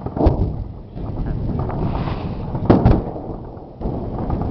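Distant booms of live weapons fire on a gunnery range: one sharp report about a quarter second in, then two close together near the end of the third second, each trailing off in a low rumble. Wind rushes on the microphone between them.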